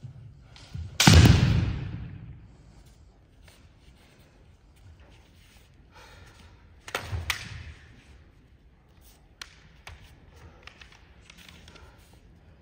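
Kendo bout: a loud impact about a second in, a foot stamp and bamboo shinai strike echoing round the sports hall, another burst of strikes around seven seconds, then a few sharp clacks of the bamboo swords meeting.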